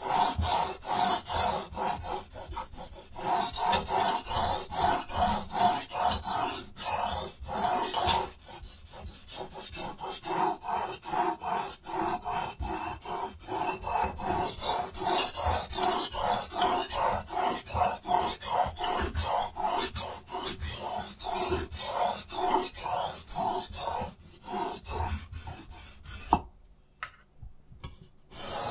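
Steel knife edge scraped back and forth across a diamond sharpening stone in a Hapstone T1 guided sharpener: a long, steady run of quick scraping strokes. The strokes stop for a moment about two seconds before the end while the knife is turned to its other side, then start again.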